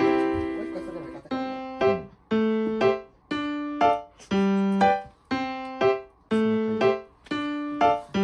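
Background piano music: slow, evenly paced notes and chords, each struck and left to ring out and fade before the next.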